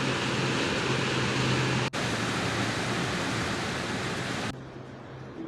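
Heavy rain pouring down, a loud steady rush. It breaks off for an instant near two seconds in and drops to a softer rush a little after four seconds.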